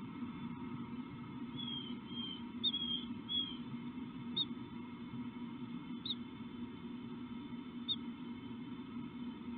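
A small bird's high, thin chirps: a quick run of four short downward-slurred notes, then single short falling notes about every two seconds, over a steady low hum.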